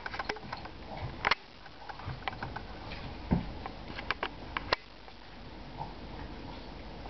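A Bouvier des Flandres and a small white dog play-fighting: sniffing and scuffling, with scattered sharp clicks, and a dull thump about three seconds in that is the loudest sound.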